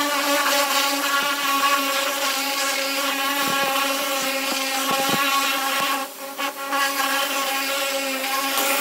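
Pressure washer spraying a jet of water onto a stripped steel car body: a steady motor hum over the hiss of the spray, dipping briefly about six seconds in.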